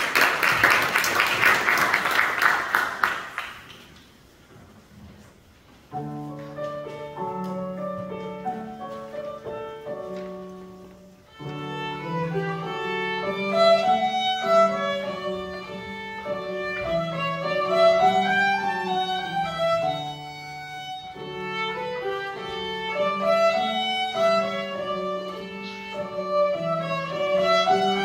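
Audience applause fades out, a short hush follows, and about six seconds in a grand piano begins. Around eleven seconds in a solo violin comes in, playing a classical piece with piano accompaniment.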